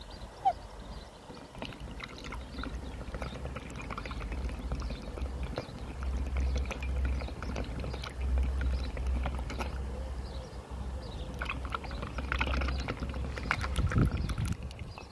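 Black swan dabbling its bill in a mug of tea: quick wet slurping and sloshing with many small clicks, busiest near the end, over a low rumble.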